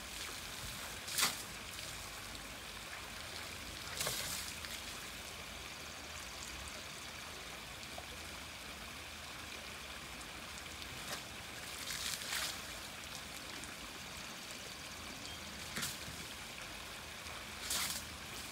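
Pool water trickling steadily as an African elephant dips its trunk in it, with about five short splashes spread through.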